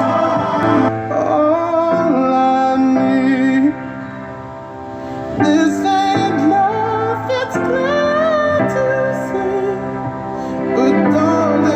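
Background music: a slow song with a female voice singing over keyboard chords.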